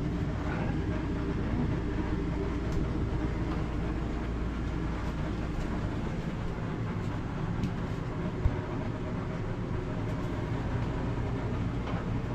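Steady low mechanical hum and rumble, with a few faint ticks and one sharp click about eight and a half seconds in.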